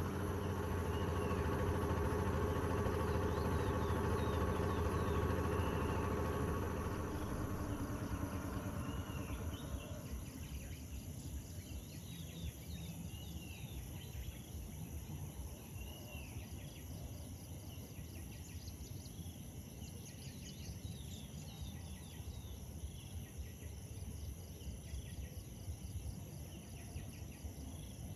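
A steady low motor hum fades away over the first ten seconds or so, leaving a bed of steady insect buzzing with scattered short chirping bird calls.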